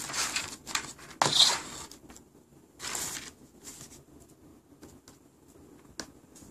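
Scattered short rustles and scuffs of handling around a foam RC-plane fuselage on a workbench. The loudest comes about a second in, and a faint click follows near the end.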